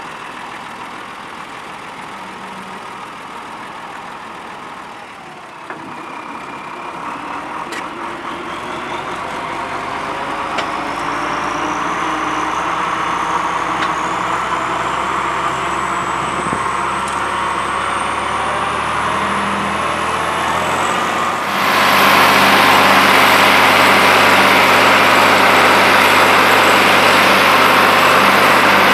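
Schlüter 1500 TVL tractor's diesel engine running steadily under load while it drives a Farmax spading machine digging the soil for deep loosening. A thin high whine rises slowly in pitch through the middle, and the sound gets suddenly louder about three-quarters of the way through.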